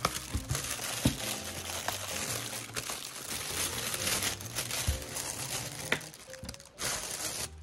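Thin plastic shopping bag crinkling and rustling in the hands as it is opened and its contents are pulled out, with a few sharper crackles.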